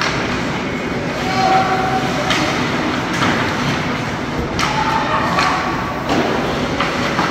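Ice hockey play in an indoor rink: a steady wash of arena noise broken by several sharp knocks of sticks, puck and bodies against the ice and boards.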